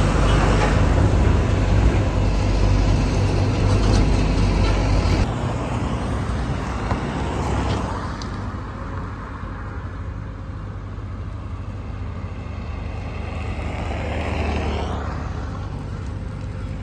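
Road traffic passing close by: a heavy low engine rumble that drops away about five seconds in, then another vehicle approaching and going past near the end.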